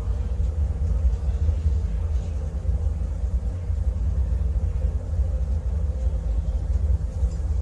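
Ventilation duct rumbling steadily, a deep continuous airflow drone with a faint steady hum above it.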